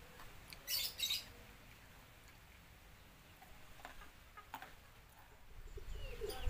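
Quiet outdoor ambience with two short hissy sounds about a second in and a few faint clicks, then a chicken begins clucking near the end.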